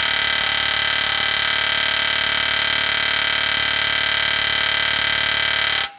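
Air hammer running continuously, driving a stubborn steel frame rivet out of a truck frame, with a fast even hammering and a metallic ringing, then cutting off suddenly near the end.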